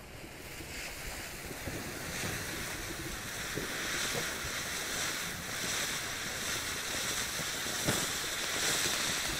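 Ground firework fountain spraying sparks with a steady, loud hiss that builds up over the first couple of seconds. A few sharp pops cut through it, the loudest about eight seconds in.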